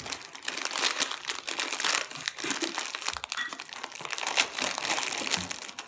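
Plastic pretzel bag crinkling as it is handled and pulled open, an irregular run of crackles.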